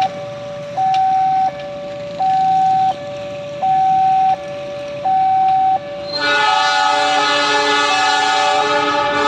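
Two-tone electronic warning alarm alternating steadily between a high and a low note, typical of an Indonesian railway level crossing. About six seconds in, the Argo Sindoro's locomotive horn starts a long, loud blast.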